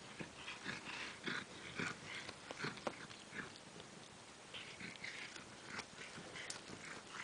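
A cat chewing and tearing cat grass close up: soft, irregular crunches and snips, about two or three a second, with a short pause near the middle.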